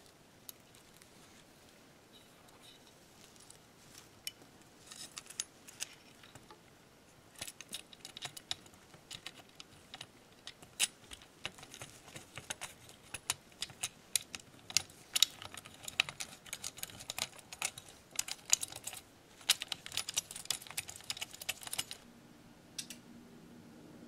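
Irregular small clicks and metallic rattles of an 80 mm Noctua fan, its chrome wire finger guard and mounting screws being handled and fitted onto the metal rear chassis of an Icom IC-7300 transceiver, thickest in the second half. The clicking stops about two seconds before the end and a faint steady hum takes over.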